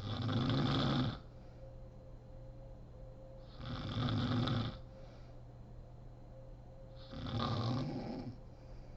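A woman snoring in her sleep: three loud snores, each about a second long, coming about every three and a half seconds.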